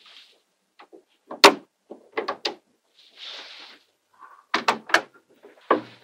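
Small neodymium magnetic balls clicking together as pieces are set down and joined: a loud single click, then short clusters of sharp clicks, with a brief soft rustle in the middle.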